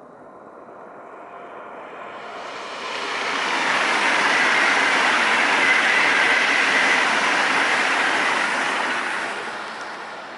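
Electric passenger train passing at speed on an electrified main line: a rushing noise that swells, peaks with a faint steady whine for a few seconds, then fades as it moves away.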